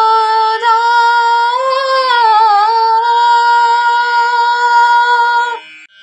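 A girl singing Carnatic vocal music, holding one long note at the end of a line with slow pitch ornaments (gamakas), then stopping abruptly about five and a half seconds in.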